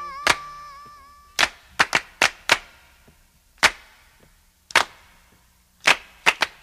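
Sharp percussive hits of a cinematic intro soundtrack, about eleven of them at uneven spacing, each with a short ringing tail. A held high tone fades out over the first second or so.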